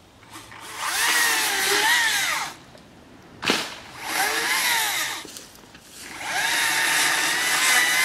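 Chainsaw revved up in three bursts of about two seconds each, its pitch rising and falling as it cuts, with a sharp crack between the first and second bursts.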